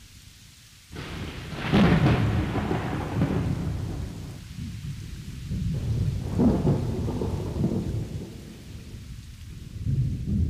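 Thunderstorm: rolling thunder over rain. The first thunder breaks suddenly about a second in, and more rumbles swell up around the middle and again near the end.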